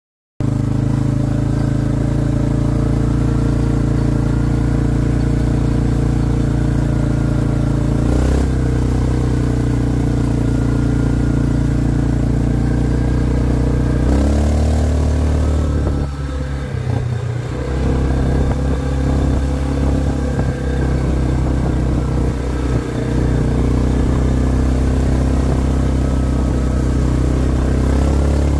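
Hisun Tactic 550 ATV's single-cylinder four-stroke engine pulling the quad along a gravel track, its CVT fitted with heavier 21 g variator rollers. The engine note steps up about eight seconds in and again at fourteen seconds, eases off briefly around sixteen to eighteen seconds, then holds steady.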